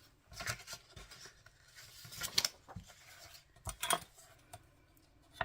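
Paper and cardstock being handled: a few short scrapes and rustles as sheets are slid and shifted against each other.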